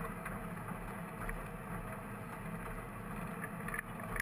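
Original Victorian electric tram of the Snaefell Mountain Railway running uphill: a steady rumble of the car on the track.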